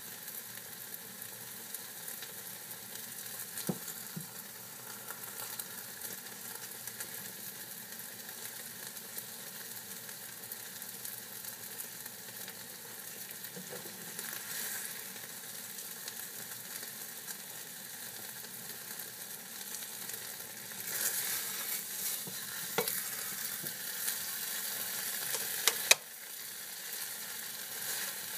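Scrambled eggs sizzling in a frying pan while a spatula stirs and scrapes them, with a few sharp knocks of the spatula on the pan. The scraping gets busier about three-quarters of the way through, ending in one loud clack.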